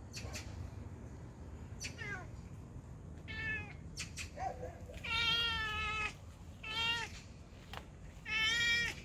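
A cat meowing several times: short meows with two longer, louder ones about halfway through and near the end.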